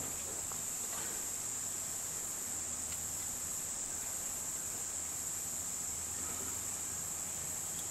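Steady high-pitched background hiss, with a couple of faint ticks and nothing else of note.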